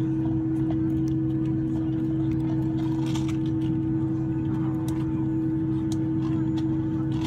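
Steady cabin hum of a Boeing 767-300ER at slow taxi with its engines at idle. It is a drone with several held tones, heard from a window seat over the wing. The highest, strongest tone cuts off near the end.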